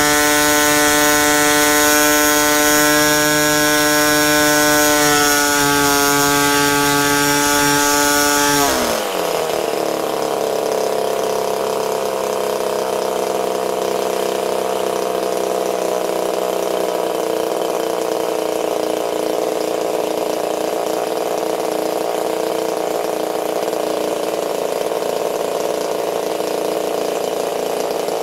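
RCGF 15cc Stinger single-cylinder two-stroke petrol engine with its propeller running at high revs, near full throttle for top-end mixture tuning. About nine seconds in it is throttled back, and the pitch drops quickly to a steady low-speed idle.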